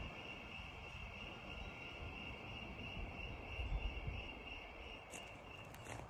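Crickets chirring in a steady, high-pitched chorus that fades out just before the end, over the low rush of the river. Low rumbles come through around the middle, and a few faint clicks near the end.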